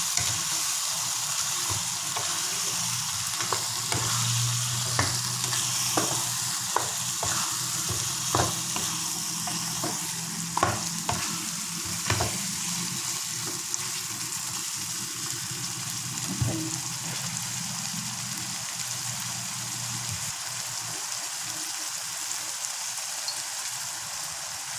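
Chicken in spice masala and curd sizzling in a pan, with a spoon clicking and scraping against the pan as it is stirred. The stirring strokes come often in the first half and only now and then later.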